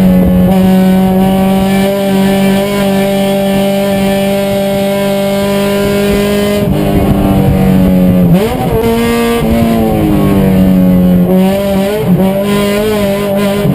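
Race car engine running hard at high, steady revs. About 7 s in the revs fall, then climb sharply again just past 8 s, with another short dip and rise near the end.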